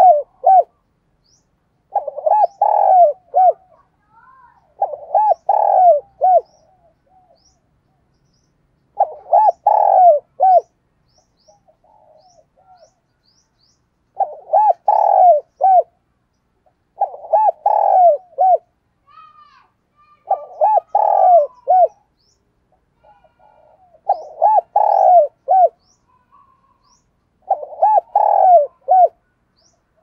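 Spotted dove cooing its calling song: repeated phrases of several deep hooting notes, one phrase every three to four seconds. Faint high chirps of small birds sound in the background.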